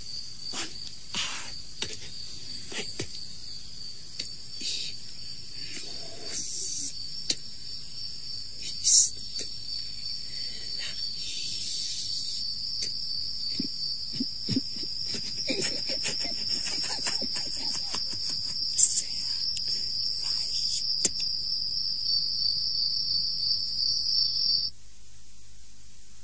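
Crickets chirring steadily at a high pitch, a night-time sound effect, with scattered faint clicks. The chirring cuts off abruptly near the end.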